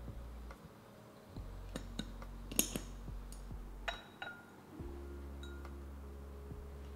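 Glass clip-top canning jar being handled: a few light clicks and clinks of glass and metal clips as the clips come off and the glass lid is lifted, the sharpest about two and a half seconds in. Soft background music runs underneath.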